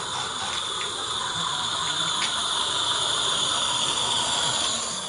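Small live-steam garden-railway locomotive (16mm scale, 32mm gauge) hissing steadily as it runs past, with a few light clicks of wheels over rail joints in the first couple of seconds.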